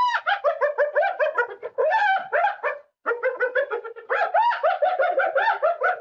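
Spotted hyena giving its high-pitched laughing giggle: a rapid run of short rising-and-falling whoops, about five a second, in two bouts with a short break about three seconds in.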